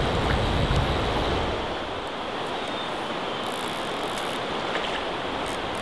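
Steady rush of flowing river water, deeper and a little louder in the first two seconds, then easing slightly.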